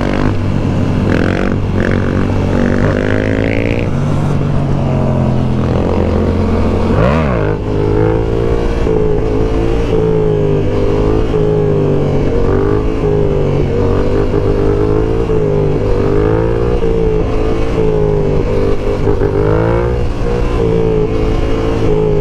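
Yamaha R7's parallel-twin engine running at a steady cruise under way, with wind and road noise. About seven seconds in, the engine revs up sharply and drops straight back.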